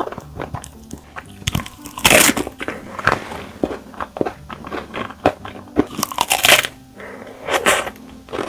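Close-up eating sounds of strawberry ice cream: crisp bites and crunching chews, the loudest crunches about two seconds in and again around six seconds. Soft background music plays underneath.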